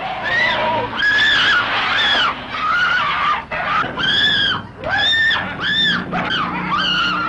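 A woman screaming again and again: a string of shrill, arching cries, each under a second long, with short breaks between them.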